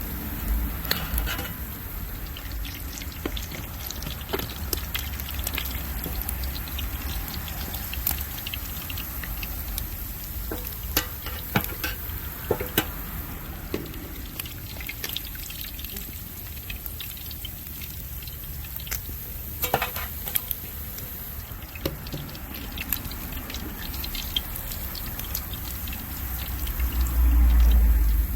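Snapper deep-frying in hot oil: a steady sizzle with scattered crackles and pops. A louder low rumble comes near the end.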